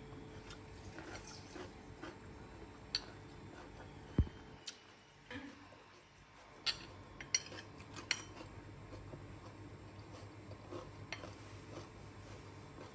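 Scattered clinks and knocks of cooking utensils against dishes or a pan, a dozen or so irregular strikes, the loudest in a cluster of three near the middle.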